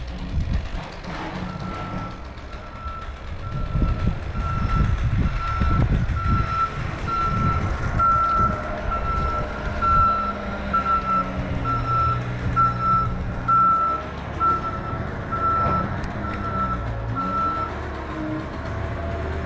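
Heavy vehicle's reversing alarm beeping steadily about once a second, over the low running of its diesel-like engine; the beeping stops near the end.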